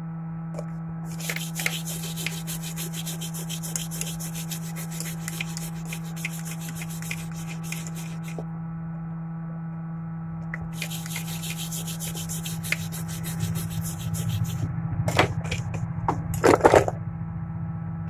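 Small scratching and scraping of a thin metal pick and a brush cleaning flux off a phone's circuit board, with scattered light clicks and a stronger bout of brisk scrubbing strokes near the end. A steady electrical hum runs underneath, with two long stretches of faint hiss.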